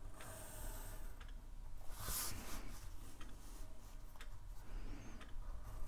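Pencil drawing along a steel ruler on paper: faint scratching strokes, one short stroke about two seconds in, with a few light ticks as the pencil and ruler are set down and moved.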